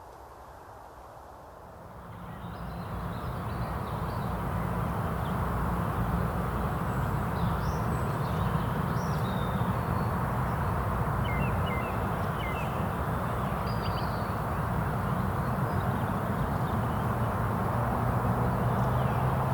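Outdoor evening ambience: a steady rushing noise with a low hum swells up about two seconds in and then holds, with faint scattered bird calls over it.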